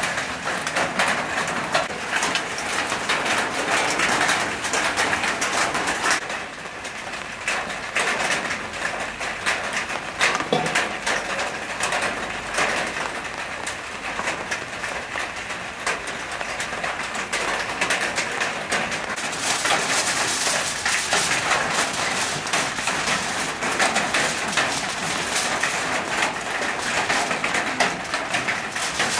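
Plastic-gloved hands squishing and kneading marinated beef ribs in a stainless steel bowl, then aluminium foil being unrolled, cut and crinkled. The crinkling gets brighter and hissier for the last ten seconds or so.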